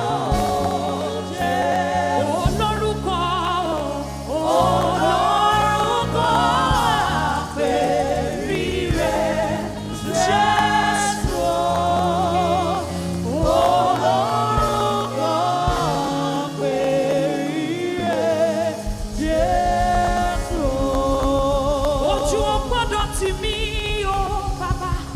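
Live gospel worship music: a voice sings long, melismatic phrases with vibrato over band accompaniment with sustained bass notes.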